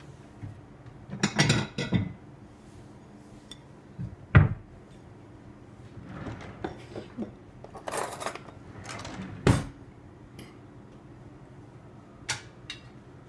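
Dishes being handled: plates clattering and clinking, with two sharp knocks, the louder about four seconds in and another about nine and a half seconds in, among softer handling noises.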